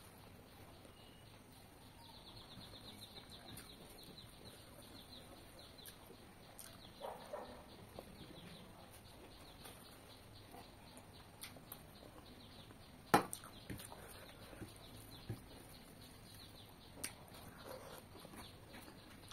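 Quiet eating by hand: chewing, and fingers mixing rice on a plate and dipping into a steel bowl, with scattered small clicks and one sharper click about thirteen seconds in.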